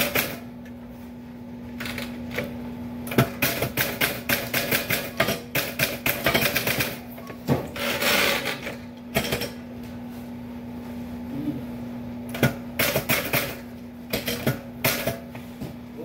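Typewriter keys clacking in quick runs of strokes, with pauses between the runs, and a brief rasping sweep about eight seconds in. A steady low hum runs underneath.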